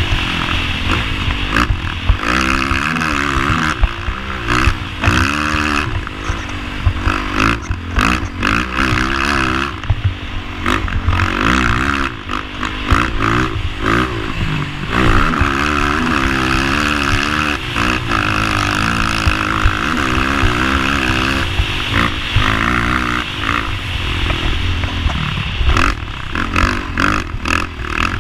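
Honda TRX450ER quad's single-cylinder four-stroke engine revving up and falling back over and over while being ridden, with scattered sharp knocks and clatter.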